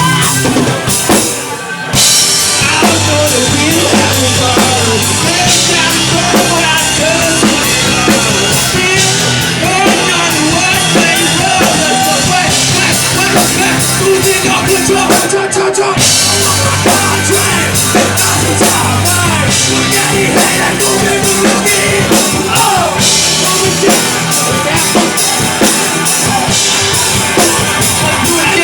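A live rock band playing loudly, with drum kit and guitars. It drops out briefly about a second in, then the full band comes back in.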